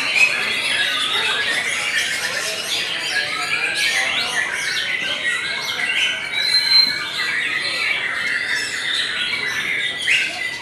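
White-rumped shamas singing, their songs overlapping in a dense, unbroken chorus of whistles, chirps and trills.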